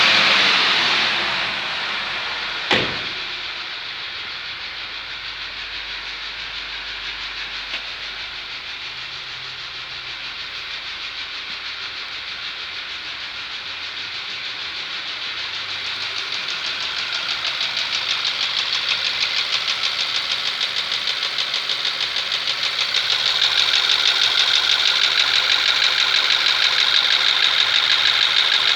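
Skoda Superb's 1.8 TSI (CDAB) petrol engine running with a fast, even ticking knock, an engine knock whose cause the owner does not know. There is a single sharp click about three seconds in. The sound grows louder about halfway through and again near the end.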